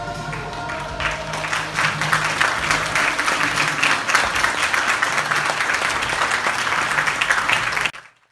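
Congregation applauding, the end of the music trailing away under the first second of claps. The applause cuts off suddenly near the end.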